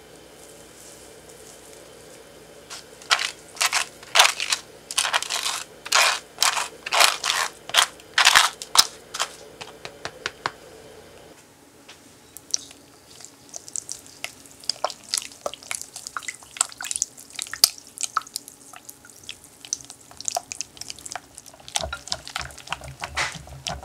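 A wire whisk stirring a runny passion fruit and cream cheese mixture in a glass bowl, its wires clicking and scraping against the glass in quick, light strokes. Before it, in the first half, comes a run of louder, slower scraping and knocking strokes.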